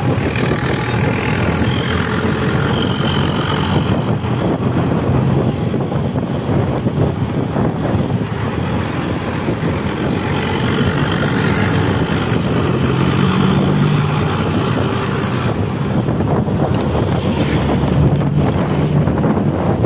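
Doa Ibu intercity bus's diesel engine and growling aftermarket exhaust running steadily under way, the engine drone swelling a little now and then, with wind rushing over the microphone.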